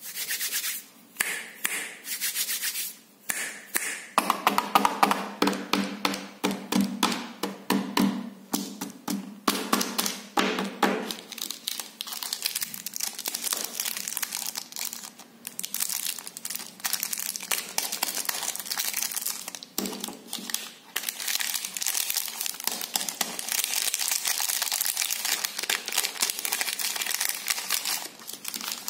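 Plastic chocolate-bar wrappers crinkling and being torn open by hand, a dense run of close crackles with short pauses.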